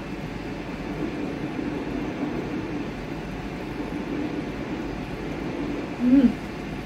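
Steady mechanical hum. About six seconds in, a short hummed "mm" of approval as the food is tasted.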